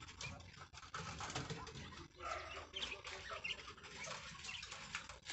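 Caged quail giving a few short, high chirps, with scuffling and rustling noise.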